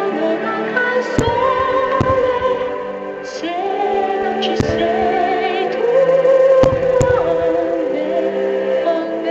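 Operatic music with a female voice and choir, with sharp firework bangs breaking through it about five times.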